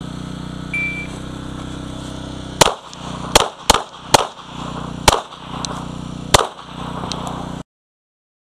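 Springfield XD(M) pistol fired six times at an uneven pace, one to three quarters of a second apart, with a longer gap before the fifth and sixth shots; a short electronic beep from a shot timer starts the string about two seconds before the first shot. A steady low hum runs underneath, and the sound cuts off suddenly after the last shot.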